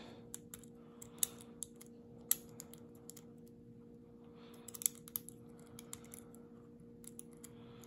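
Faint, irregular light clicks and ticks of a lock pick and tension wrench working the pin stack of a Lockwood padlock during single-pin picking, with a few sharper clicks standing out, over a steady low hum.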